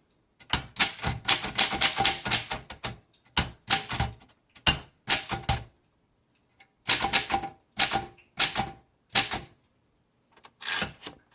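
1938 Royal Junior manual typewriter being typed on: sharp key strikes come in quick runs of several strokes, broken by short pauses.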